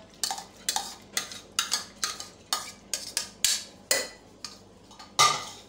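A steel spoon scraping and knocking split chickpeas (chana dal) out of a bowl into a metal pressure cooker: a dozen or so quick scrapes and clinks, about two a second, the loudest one about five seconds in.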